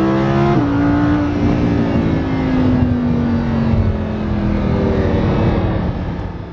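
A car engine accelerating hard: its pitch climbs and drops sharply at an upshift about half a second in. The note then holds and slowly falls away, fading out at the very end.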